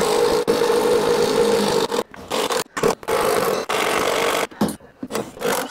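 A power tool cutting, its motor running in several runs of one to two seconds with short, sudden stops between them.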